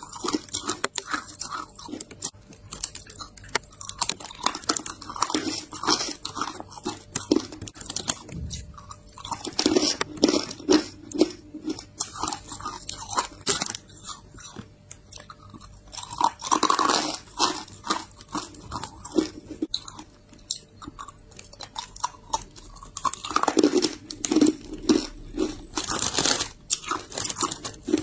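Hard clear ice being bitten and chewed: many sharp cracks and crunches, coming in runs with short pauses between bites.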